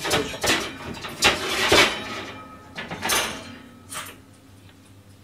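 Kitchen clatter: about five sharp knocks and bangs of dishes and a door or drawer being handled, loudest in the first two seconds. A low steady hum sets in underneath after about two seconds.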